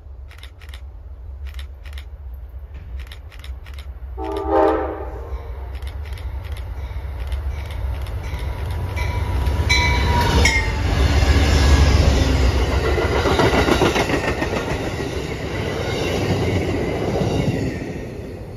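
Amtrak P42DC diesel locomotive hauling a passenger train: one short horn blast about four seconds in, then the engine rumble and wheel clatter on the rails build as it passes, loudest near the middle, and fade toward the end.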